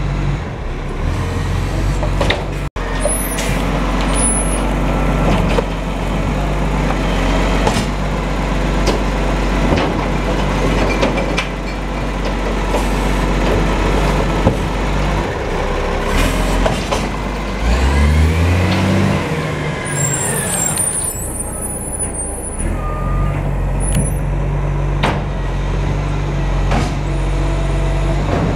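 Diesel recycling truck running at the kerb, with clanks and knocks from bins being handled. About 18 seconds in it revs up, rising in pitch as it pulls away, then settles back to a steady run, with a hiss of air brakes.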